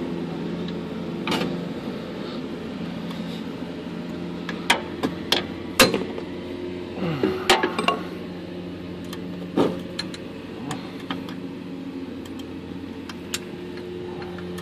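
Hammer striking a center punch on the steel axle mounting tab to mark the drilling spot: about a dozen sharp metallic knocks at uneven intervals, most of them through the middle, over a steady low hum.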